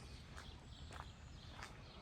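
Faint footsteps of someone walking, a short step roughly every half second, over a steady low rumble.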